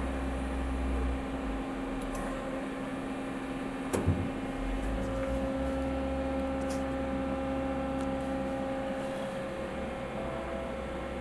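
Doosan Puma 400LB CNC lathe running under power, a steady machine hum made of several tones. A low tone drops out near the end while a higher one comes in partway through, and a short knock sounds about 4 seconds in.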